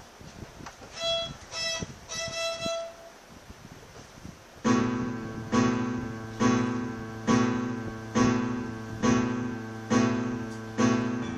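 Instrumental music. A violin-like lead plays three held notes. From about four and a half seconds in, keyboard chords strike on a steady beat, about one a second, each fading, over a sustained bass.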